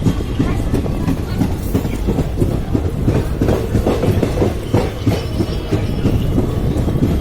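Express passenger train crossing a railway bridge: a loud, continuous rumble with a rapid, irregular run of wheel clacks over the rails.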